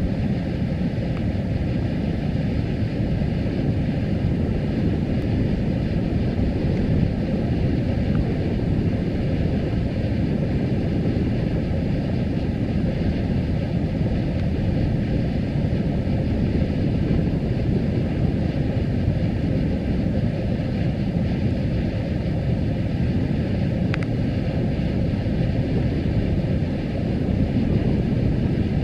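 Steam fumarole venting: a steady, deep rushing of steam escaping from the vent, unbroken throughout.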